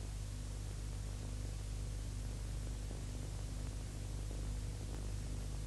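Steady hiss with a low hum underneath: the background noise of an old newsreel film soundtrack.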